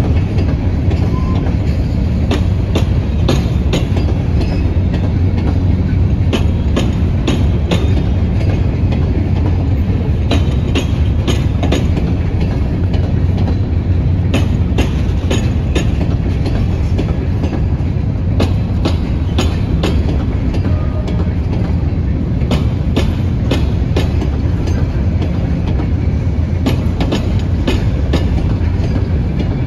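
Empty Herzog ballast hopper cars of a freight train rolling past. A steady low rumble of wheels on rail, with frequent sharp clicks and clanks.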